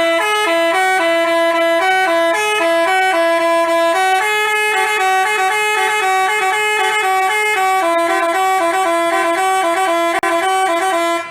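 Basuri telolet multi-tone bus horn playing a tune, a quick run of held and stepped notes with a buzzy, many-overtoned horn tone, cutting off abruptly at the end.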